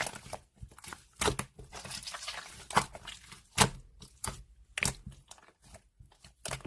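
White slime being squished and pressed by hand, giving irregular sharp pops and snaps, with a stretch of fine crackling in the middle.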